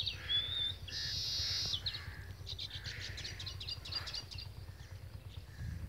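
Small birds chirping in quick high runs, with a short wavering whistle near the start and a buzzy trill about a second in.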